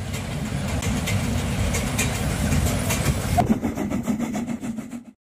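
Steam locomotives working under steam with their exhaust beats. First comes the standard-gauge 2-10-2 tank engine 95 027. After a cut about three and a half seconds in, a Harz narrow-gauge steam locomotive follows with a more even run of beats. The sound cuts off abruptly near the end.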